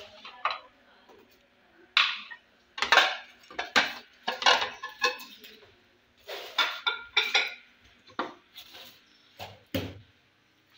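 Crockery plates and bowls clattering and clinking as they are handled and set down: a string of irregular knocks, several with a short ringing tail, most between about two and eight seconds in.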